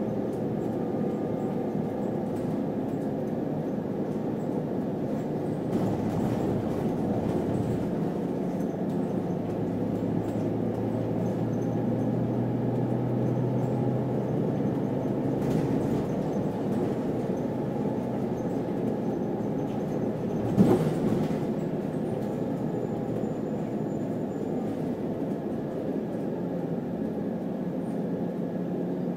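A moving city bus heard from inside: steady engine and road noise, with a low engine hum that swells from about nine seconds in and fades a few seconds later. One sharp thump about two-thirds of the way through is the loudest sound.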